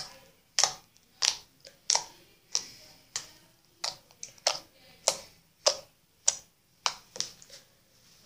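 Fingertips poking homemade clear-glue slime, each press giving a short, sharp wet pop, about one every half second to second. The pops stop near the end as the slime is lifted and stretched.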